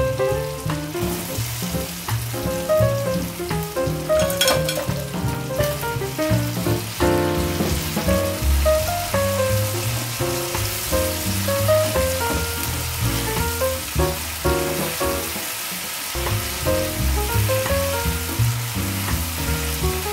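Red chili balado sauce sizzling in a frying pan as fried smoked tuna pieces are added and stirred in with a silicone spatula, with a short clatter about four seconds in. Background music with a melody and bass plays throughout.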